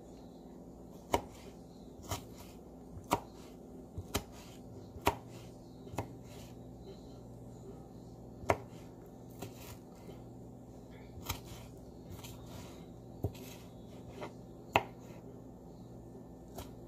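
Small paring knife cutting tomato on a wooden cutting board: sharp, irregular knocks of the blade on the board, roughly one a second.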